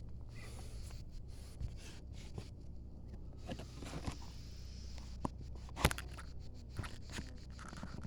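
A few faint clicks and knocks, with one sharp crack about six seconds in, over a low steady hum.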